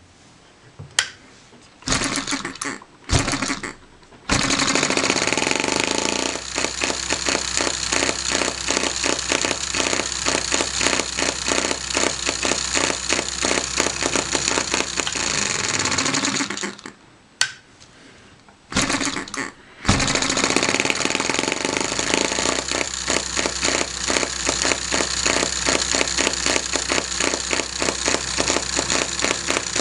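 Miniature single-cylinder air-cooled hit-and-miss engine hand-started by its flywheel: two short bursts of firing, then it runs with a rapid popping beat for about twelve seconds, cuts out, and after two more brief bursts catches again and runs on.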